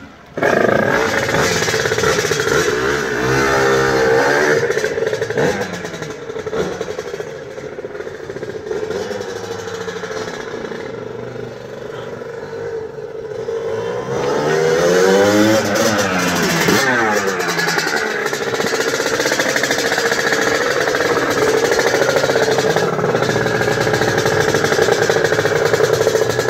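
Aprilia RS 125's race-tuned Rotax 122 two-stroke single catching suddenly about half a second in on a push start, then revving up and down as the bike is ridden away and back. It grows fainter in the middle, louder again as it returns, and runs steadily near the end.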